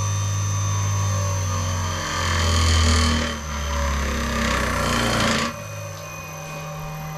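Electric motor of a homemade flat-lap polishing machine, a former circular-saw motor fed by a variable frequency drive, running with a hum that falls in pitch as the drive's speed is turned down from maximum. Two stretches of hissing noise ride over it, and about five and a half seconds in it drops abruptly to a quieter, steady hum.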